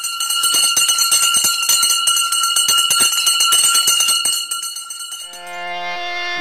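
Rapid jingling of many small bells over a steady ringing bell tone. About five seconds in the jingling stops and a sustained organ chord begins.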